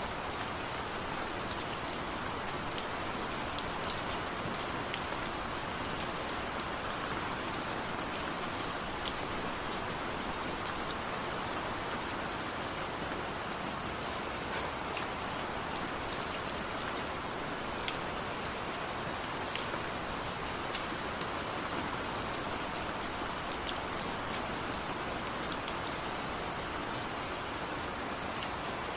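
Steady rain falling, an even hiss with scattered sharp drop ticks on top.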